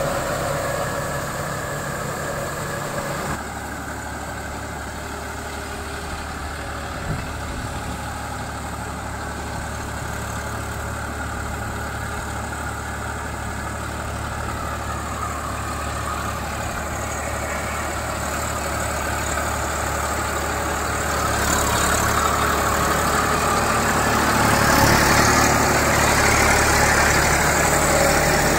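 Tractor diesel engine running steadily under load while working a rotavator through a flooded paddy field. The engine grows louder and fuller about three-quarters of the way in.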